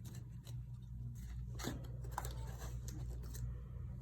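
Paperboard tray tabs being pinched and pressed into place by hand: a few faint creasing clicks and rustles over a steady low hum.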